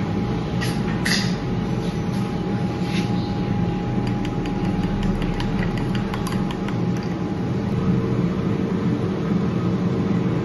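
A steady mechanical whirring hum with a constant tone, joined about four seconds in by a few seconds of quick, light clicks.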